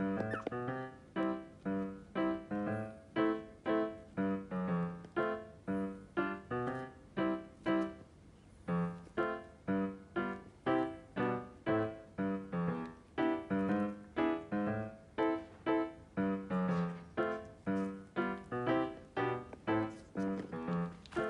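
Background piano music: a light tune of evenly spaced, decaying notes, about two a second.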